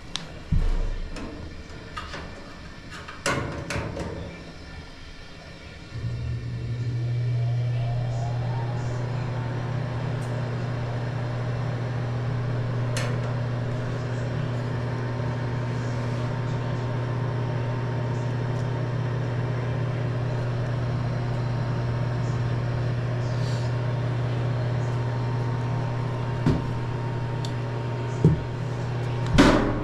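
Older gas furnace after firing up: a few knocks and clicks, then about six seconds in a steady low hum starts, its pitch rising for a couple of seconds before it settles and runs on evenly.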